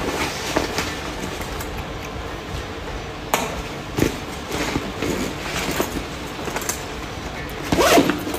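Rummaging through a fabric backpack: rustling with several light knocks and clicks as items are taken out and set down on a countertop, over a steady background noise.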